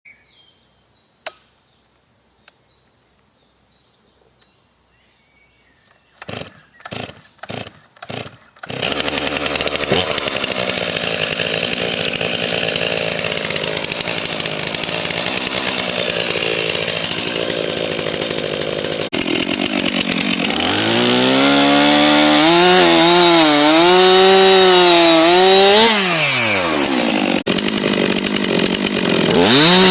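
Stihl MS 362 C-M two-stroke chainsaw starting: after a quiet opening it sputters in a few short bursts, then catches and idles. About twenty seconds in it revs up high, its pitch wavering under load as it cuts through wood. It drops back to idle and revs again at the end.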